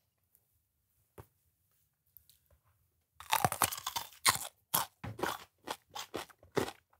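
Quiet for about three seconds with one small click, then loud crunching as a raw jalapeño pepper is bitten into and chewed, in a quick series of crunches.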